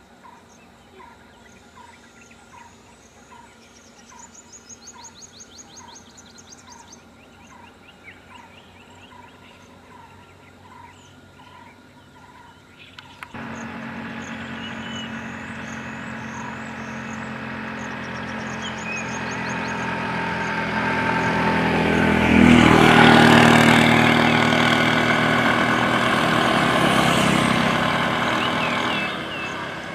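Birds calling: a short chirp repeated roughly every two-thirds of a second, with quick trills now and then. About 13 s in this cuts abruptly to road traffic: vehicle engines and tyres on asphalt that grow louder to a peak about two-thirds of the way through as a vehicle passes close, then ease off near the end.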